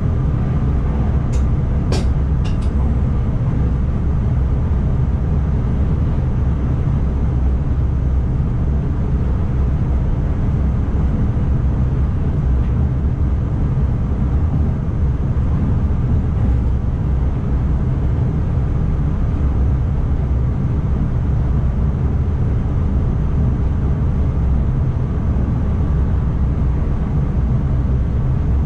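ICMm electric intercity train running at speed, heard from the driver's cab as a steady low rumble of wheels on rail, with a few sharp clicks about two seconds in.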